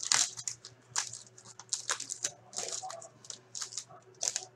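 Plastic wrapper of a hockey card pack crinkling and tearing in irregular sharp crackles as it is ripped open and the cards are pulled out.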